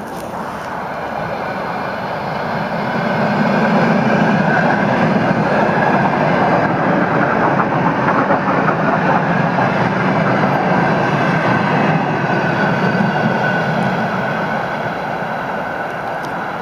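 ER2 electric multiple unit passing: the rumble and rattle of its wheels on the rails swells as the carriages go by, holds, then slowly fades as the train moves away.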